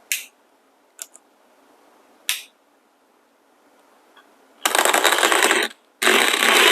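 Three sharp clicks, then the motor-driven 1Zpresso hand coffee grinder starting up and grinding beans: a loud, dense grinding noise for about a second, a brief stop, then the grinding starts again with a wavering whine.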